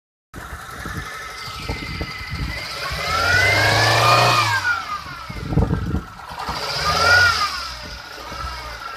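Peugeot 206's 1.4-litre petrol four-cylinder engine running unevenly and revved up twice, rising and falling back each time. The misfire gives it an irregular, stumbling beat.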